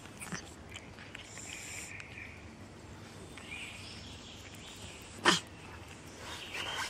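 Street cats crowding a plastic tub of food, with faint high animal calls and one short, sharp burst from a cat about five seconds in, the loudest sound.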